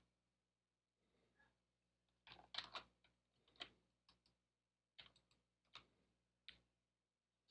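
Faint clicks of a computer keyboard and mouse: scattered single keystrokes, with a quick run of several clicks about two and a half seconds in.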